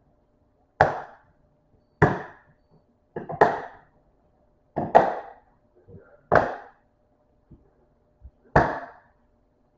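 Six sharp knocks of hard objects, a second or so apart, each dying away quickly; the third comes as a quick double knock.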